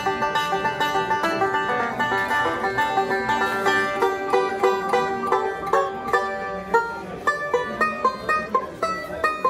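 Sloan Banjos Jo2Go folding-neck five-string banjo fingerpicked in bluegrass style: a quick, continuous run of bright plucked notes.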